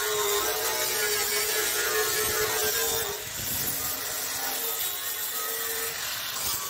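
Handheld electric power tool running with a steady whine over a grinding hiss. The whine dips and weakens about three seconds in, then comes back.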